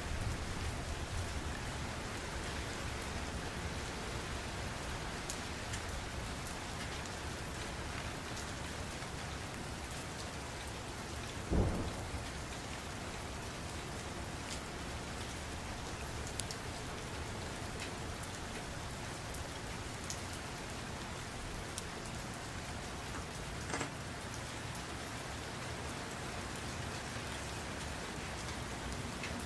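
Colored pencil scratching steadily across kraft paper while shading, with one dull thump about twelve seconds in.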